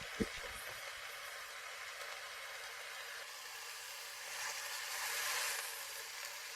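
Flat burgers sizzling as they fry on a hot camp cooker, with a soft knock just after the start and a louder surge of sizzling about five seconds in.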